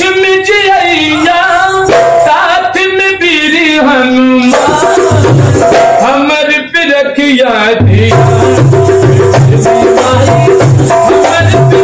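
A man sings a Bhojpuri devotional song to the mother goddess (devi geet) and accompanies himself on a dholak barrel drum, with the bells on his wrist jingling. The first few seconds are mostly voice. Drum strokes come in about five seconds in, and from about eight seconds a steady low drum rhythm runs under a held sung note.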